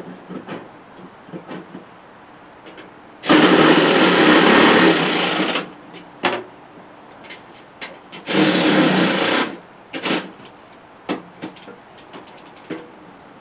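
Small handheld power driver running in two bursts, the first about two seconds long and the second about one, driving the bolts that hold a mower deck spindle housing; light clicks and knocks of the tool and bolts come between the bursts.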